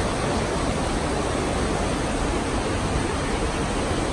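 Blackburn Fork river rushing over rocks in shallow rapids, a steady, loud wash of moving water.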